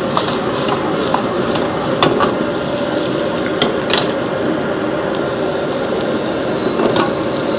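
Onions, chillies and spices sizzling in hot oil in an iron kadai over a running high-flame gas burner. A few sharp clicks of the ladle against the pan come through.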